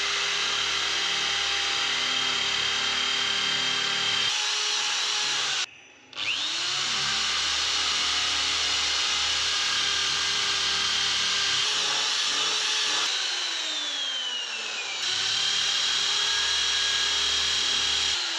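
Electric drill boring holes into the wooden stile of a door, the motor running steadily under load. It stops briefly about six seconds in and spins back up, and its pitch slides down for a couple of seconds about two-thirds through before it picks up again.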